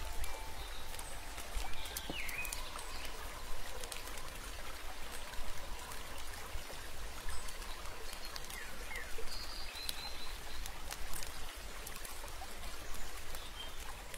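A steady outdoor ambience like trickling water, with scattered small ticks and a few short bird chirps.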